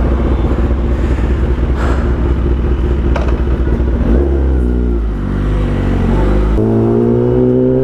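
Kawasaki ZX-10R's inline-four engine running steadily, then accelerating about four seconds in, its pitch climbing and dropping back twice as it shifts up through the gears.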